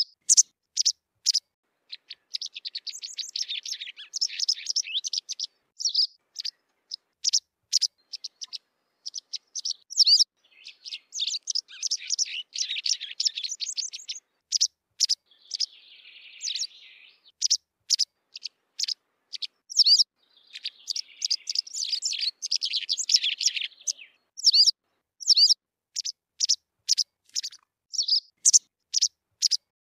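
White wagtail calling and singing: sharp, separate high notes repeated at irregular intervals, broken by three longer passages of fast twittering song.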